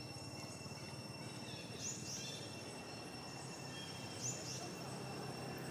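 Outdoor ambience: a steady high-pitched insect drone, with short high chirps, two close together about two seconds in and one more about four seconds in.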